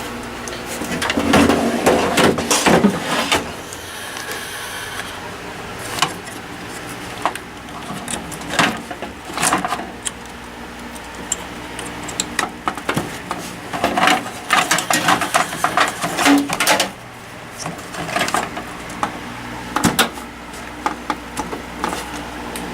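Handling noise from working on a desktop PC: a run of clicks, knocks and rattles at uneven intervals, over a steady low hum.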